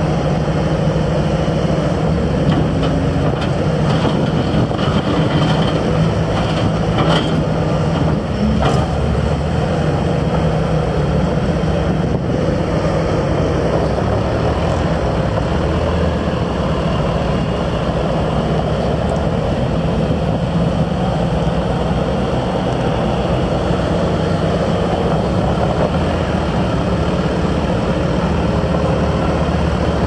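Bobcat S630 skid-steer loader's diesel engine running steadily as the machine drives and turns on gravel, with a few light clanks about a quarter of the way in.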